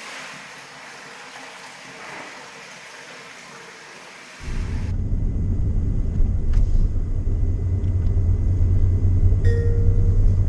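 A steady hiss, then about four seconds in a loud low rumble starts suddenly: a Honda N-VAN kei van driving, its road and engine noise heard from inside the cabin.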